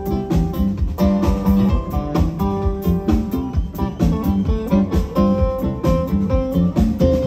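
Live rock band playing an instrumental passage: guitar lines over a steady drum beat.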